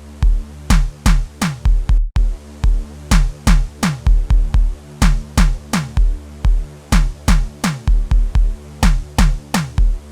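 Electronic Sgubhu beat playing back: a drum-machine loop of deep kicks that drop in pitch, with sharp percussion clicks, about two to three hits a second. The playback cuts out for an instant about two seconds in, then the loop carries on.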